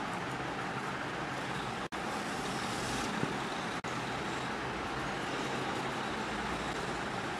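Steady background noise: an even hiss with a faint low rumble underneath. It cuts out for an instant about two seconds in and again about four seconds in.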